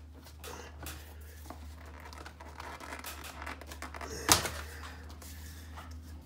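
Light clicks and rustling as a window screen frame is handled and pressed into a window frame, with one sharp knock about four seconds in.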